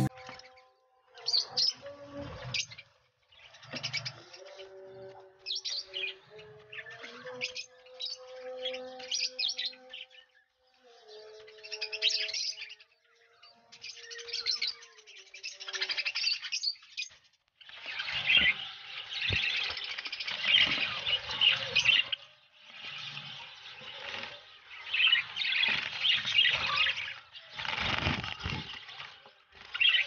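Budgies chattering and chirping in quick, warbling bursts. The chatter is broken by short pauses at first and grows busier and louder about halfway through.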